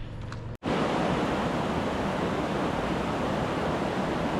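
Steady, even rushing noise that fills the sound, after a brief cut-out about half a second in.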